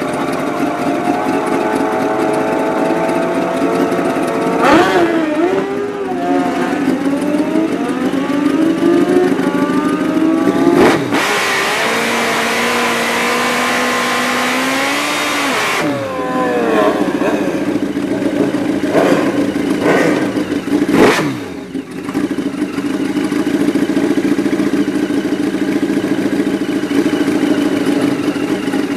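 Kawasaki KZ drag bike's engine idling steadily close by, with its pitch sweeping up and down a few times as revs rise and fall. About a third of the way in, a loud stretch of hard-running engine noise lasts several seconds as the drag bike ahead makes its run.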